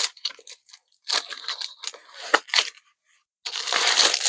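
Packaging being opened by hand: crackling, crinkling and tearing of the box and wrapping, in a run of crackles about a second in, a brief pause, then denser crinkling near the end.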